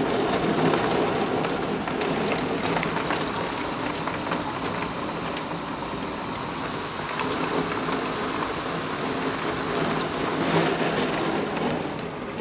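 Heavy rain mixed with hail pouring down, a steady hiss broken by a few sharp clicks of hailstones striking.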